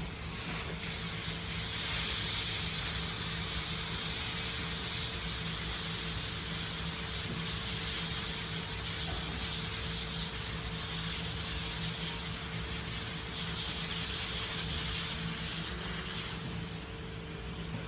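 A steady hiss like compressed air or spray, starting about a second and a half in and stopping shortly before the end, over a steady low hum.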